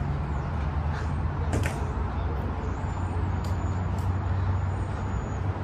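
A steady low mechanical hum, with a few light knocks about a second in and again near the middle.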